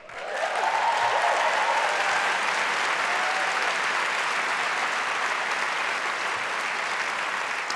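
Large theatre audience applauding, swelling quickly at the start and then holding steady.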